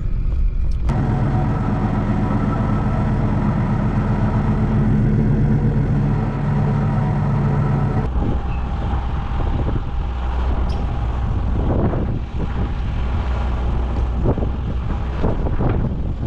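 Truck engine running steadily while driving, a dense low rumble; the engine note changes abruptly about halfway through.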